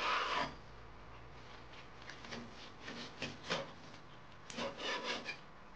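Steel cleaver slicing raw lamb into strips on a wooden cutting board: short scraping strokes of the blade drawn through the meat and against the board. One longer stroke comes at the start, then a few separate ones, with a quick cluster near the end.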